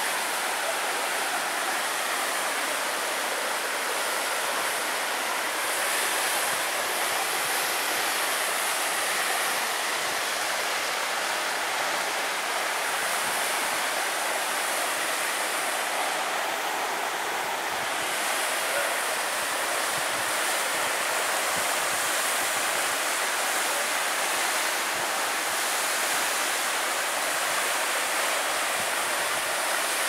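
Waterfall falling into a rock pool, with water spilling over rock ledges: a steady rush of water, high and hissy, with little deep rumble.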